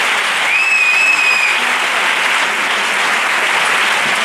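Audience applauding steadily after an introduction, with one high whistle that rises and then holds for about a second, starting about half a second in.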